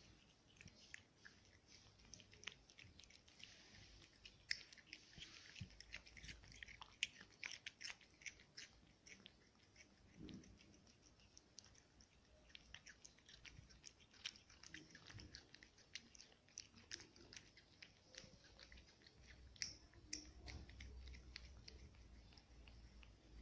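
A cat eating from a plate: faint, quick, irregular wet clicks and smacks of chewing and licking.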